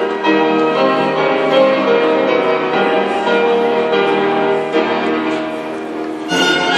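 Instrumental music for a figure-skating program, made of held notes. About six seconds in, a louder and fuller passage comes in.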